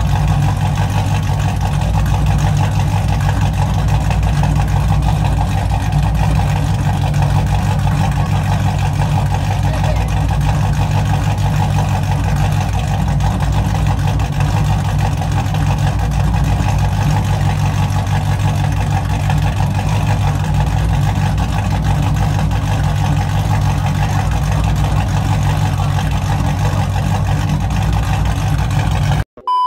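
Chrysler 300C's 5.7 Hemi V8 with a freshly installed stage 2 Comp Cams camshaft, long-tube headers and mid-pipes, idling steadily through the exhaust. The sound cuts off suddenly just before the end.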